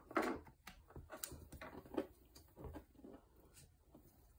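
Plastic pipe fittings being handled and pushed into a small water pump's port, making a string of irregular small clicks and taps.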